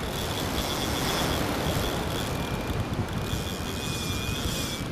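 Wind buffeting the microphone over the steady wash of surf on the beach, a continuous rushing noise. A faint thin high whine runs through it.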